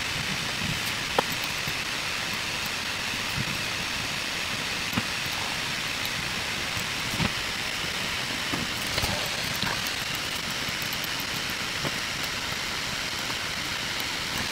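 A steady hiss of background noise, with a few light taps and faint scratches from a pen drawing on paper.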